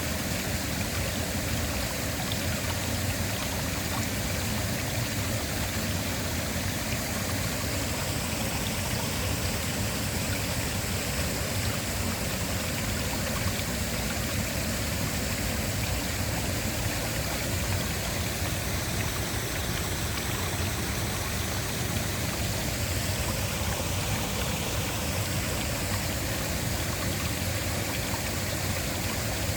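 Waterfall, the water rushing in a steady, unbroken noise.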